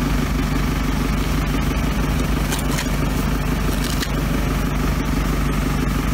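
Fountain water splashing steadily, with a low hum underneath.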